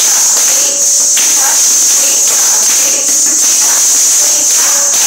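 Ghungroo (Kathak ankle bells) worn by a group of dancers jingling without a break as they dance, with faint background music underneath.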